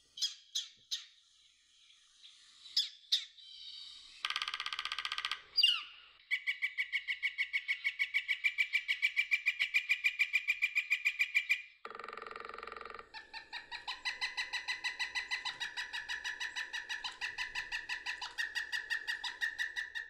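Recorded woodpecker sounds: a few sharp single notes, a short rattle, then two long runs of fast, evenly repeated pitched notes, the first lasting about five seconds and the second about seven.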